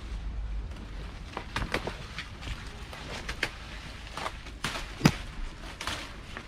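Grape vine shoots being chopped off: a series of sharp snips and snaps with leaves rustling, the loudest snap about five seconds in.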